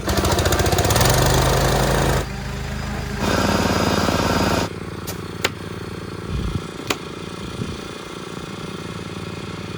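Power saw cutting cedar fence boards in two loud runs, the first about two seconds long and the second shorter. Then comes a lower steady hum with three sharp shots of a nailer tacking pickets on.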